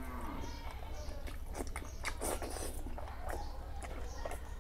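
Close-miked wet chewing and smacking of soft mutton fat curry and rice, with many small clicks and squelches.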